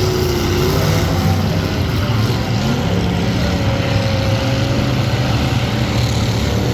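Several demolition derby car engines running loudly together, their pitches rising and falling as they rev.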